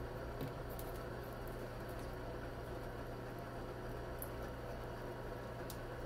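A cockatiel bathing in a shallow dish of water: faint splashing and wing flutters with a few light ticks, over a steady low hum.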